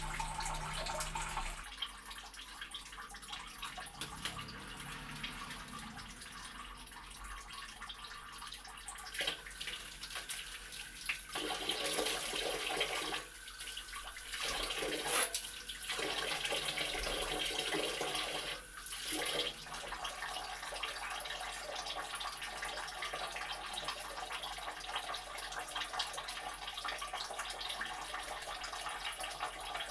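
Water running and splashing in a small tiled bathroom, louder with several splashes between about ten and twenty seconds in.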